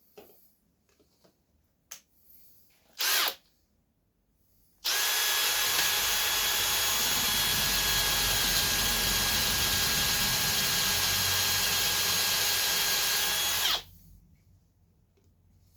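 Power drill boring into a seized bolt with a 6 mm bit. It gives a brief blip about three seconds in, then runs steadily with a whine for about nine seconds and stops abruptly.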